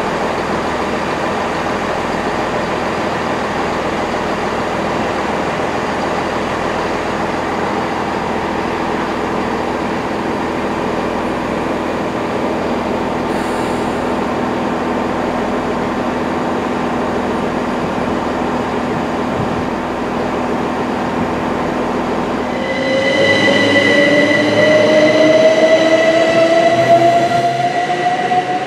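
Steady train noise with a constant hum. About 23 seconds in it gets louder as an electric train's traction motors whine steadily up in pitch while it accelerates.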